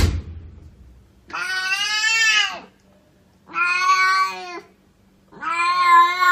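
A short sharp knock, then a cat meowing three long, drawn-out times, each call holding a steady pitch for a second or more.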